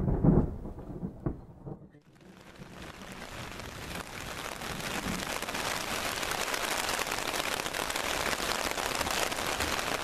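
Heavy rain falling steadily, fading in about two seconds in after a brief voice at the start.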